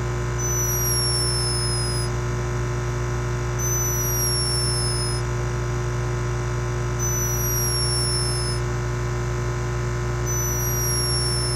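A sleeping hummingbird snoring: four thin, high-pitched whistles, each gliding slightly down in pitch and lasting about a second and a half, coming about every three seconds. Under them runs a steady hum, background noise brought up by the camera's raised microphone sensitivity.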